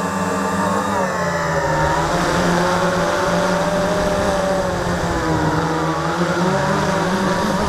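Electric motors and propellers of an FPV drone, heard through its onboard camera: a steady buzzing whine whose pitch dips and rises as the throttle changes.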